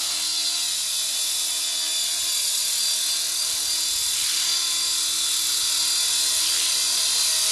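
T-Rex radio-controlled model helicopter lifting off and flying, its motor and spinning rotor blades making a steady high-pitched whine.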